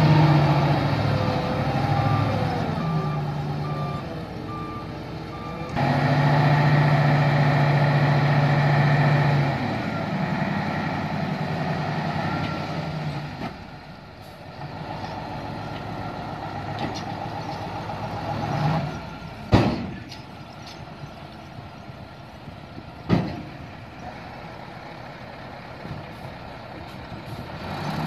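Nissan Diesel V8 dump truck's engine running and revving as it reverses with a pulsing reversing beeper, then working the hydraulic tipper to raise the bed and dump its load of earth. Two sharp bangs stand out in the second half, about three and a half seconds apart.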